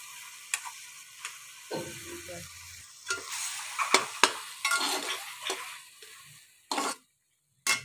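Beef mince frying in ghee in a metal pan, sizzling steadily, while a spatula scrapes and knocks against the pan as tomato paste is stirred in; the sizzle dies away near the end.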